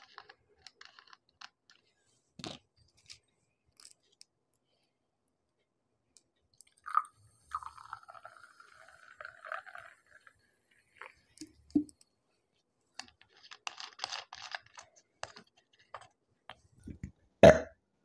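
Mountain Dew poured from a plastic soda bottle into a stemmed glass for a few seconds, then the carbonation fizzing and crackling in the glass. Near the end, a loud thump as the bottle is set down on the table.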